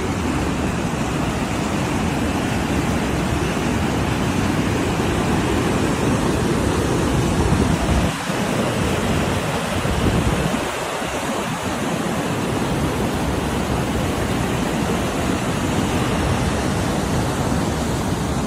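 Whitewater of a mountain stream rushing over granite slabs and small cascades: a steady, loud rush of water.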